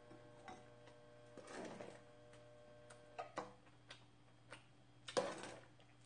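Quiet room with a few light clinks of a metal ladle against a pot and bowl as broth is scooped, the loudest a little after five seconds.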